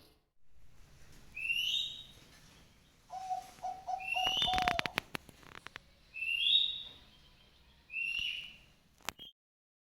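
A bird calling: four short rising whistled calls about two seconds apart, with a quick run of five lower notes and a few clicks in the middle. The sound stops abruptly near the end.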